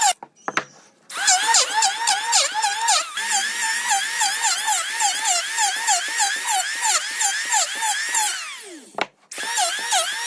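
Power drill running with a whine that wavers in pitch about three or four times a second. It stops briefly just after the start, then starts again. Near the end it winds down with a falling whine, stops, and starts up again.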